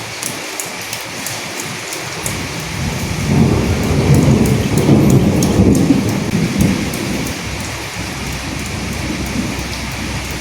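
Steady rain with the ticks of single drops, and a roll of thunder that swells about three seconds in and dies away a few seconds later.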